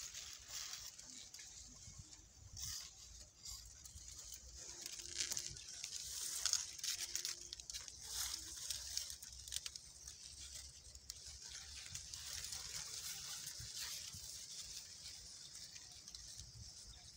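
Dry sugarcane leaves rustling and crackling irregularly with movement close by, louder for a few seconds about six seconds in.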